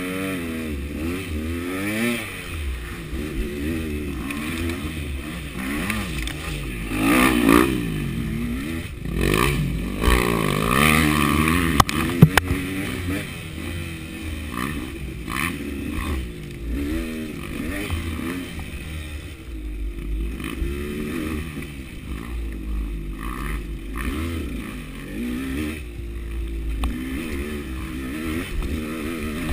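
KTM 200 two-stroke dirt bike engine revving up and down as the bike is ridden, pitch rising and falling with the throttle. A few sharp knocks cut through, the loudest about twelve seconds in.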